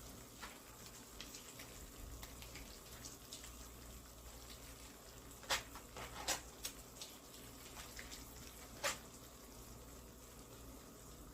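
Hands squeezing and rubbing soaked semolina to press its starchy water out, a faint wet sound of liquid dripping, with a few sharp clicks about halfway through.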